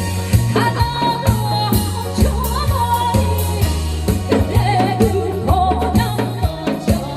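A woman singing a melody line over a backing track with drum kit and bass keeping a steady beat.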